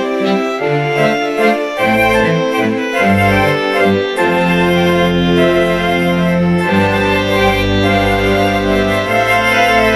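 Music played on sampled instruments from the iSymphonic orchestra app's PRO Sound Pack. For about the first four seconds there is a moving line of short low notes, then long held chords over sustained bass notes.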